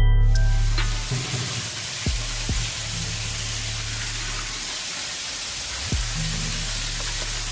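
Background music with a deep bass line, its heavy opening hit dying away over the first second, over a steady hiss.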